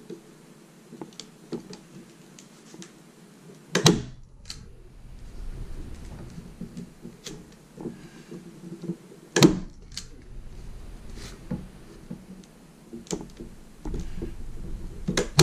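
Manual staple gun firing staples into a wooden canoe-seat frame to hold paracord: three sharp snaps, roughly five to six seconds apart, the last near the end. Small clicks and handling noises in between.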